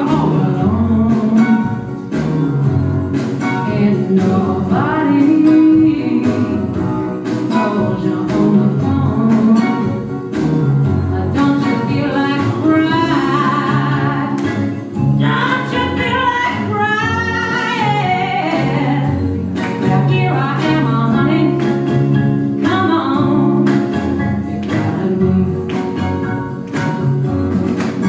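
A woman singing a slow soul song over instrumental accompaniment with a bass line and a steady beat. Around the middle she holds long notes with a strong vibrato.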